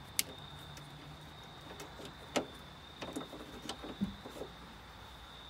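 Sharp plastic clicks and light knocks as a wiring connector and interior trim are fitted by hand on a car's rear hatch: a few scattered clicks, a cluster of small knocks with a soft thump about four seconds in. A faint steady high tone sits underneath.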